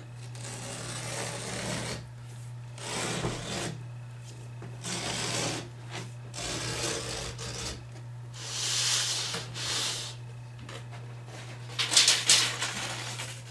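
Utility knife slicing through the backing of a carpet along a metal straight edge: a series of rasping cuts, each about a second long. A brief, sharp clatter near the end.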